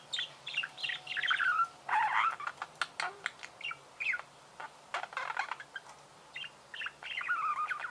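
Budgerigars warbling: a chattering stream of short chirps, squeaks and sharp clicks that thins out briefly near the middle.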